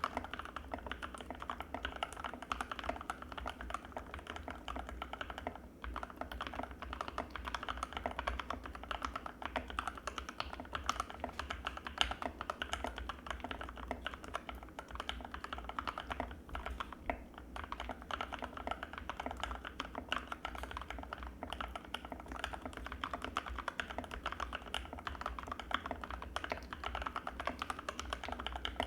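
Anne Pro 2 mechanical keyboard with Gateron Red linear switches being typed on fast and without a break, a dense stream of creamy keystrokes.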